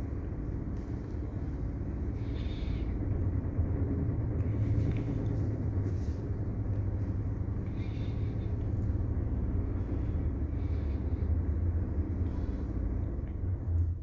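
Passenger lift car travelling down, a steady low rumble and hum with a faint swish every couple of seconds.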